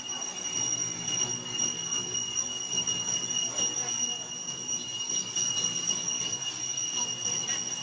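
A steady, high-pitched whine holding two fixed pitches, over a low, even background hum.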